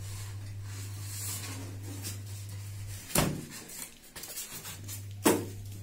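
Polystyrene foam packing end cap being worked off a PC tower case, with two sharp knocks about two seconds apart, the second the louder, over a steady low hum.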